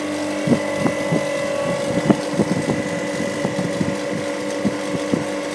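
Refrigeration plant running with a steady machine hum, with scattered light clicks and knocks over it.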